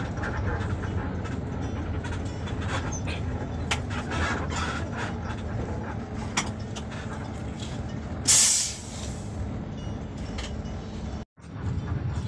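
Bus diesel engine running, heard from inside the cabin, with scattered small clicks and rattles. About eight seconds in, a short loud hiss of released compressed air comes from the bus's air brakes or pneumatic door. The sound cuts out for a moment near the end.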